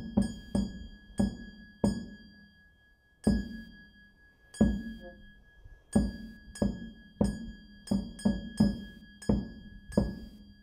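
Percussion struck in a slow, uneven rhythm, about fifteen strokes with a pause of about a second and a half after the first two seconds. Each stroke rings out and dies away over a faint, steady high metallic ring.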